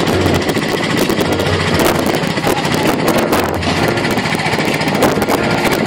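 Steady, loud engine noise.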